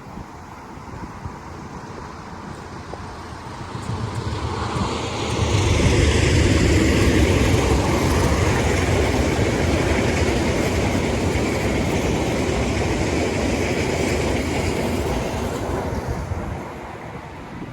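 A train passing close by: its rumble builds over a few seconds, stays loud for about ten seconds, then fades away near the end.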